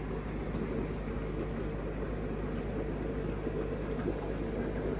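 Steady low hum of fish-tank equipment, pumps and aeration running, over a constant even hiss.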